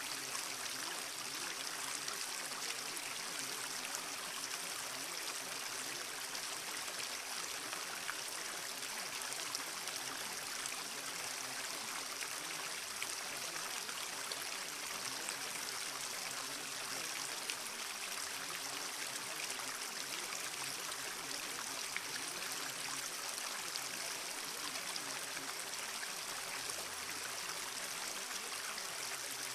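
Steady running water like a flowing stream, with a few faint steady low tones underneath.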